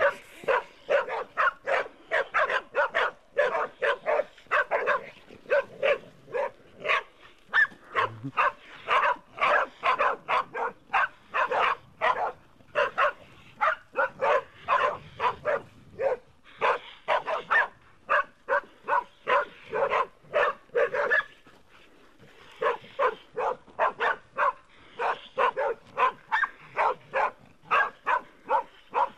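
Pig-hunting dogs barking rapidly and without let-up at a wild boar they are holding at bay, with a brief lull about three-quarters of the way through.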